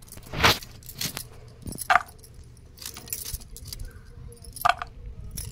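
Pumpkin being cut by hand on a boti, a fixed floor blade. Bangles clink and the cut pieces drop into a steel bowl: a few scattered sharp clinks, two of them with a short metallic ring.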